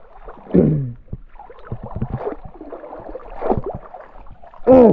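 Water sloshing and splashing as someone wades through a shallow stream, with a short vocal sound about half a second in and a loud call near the end.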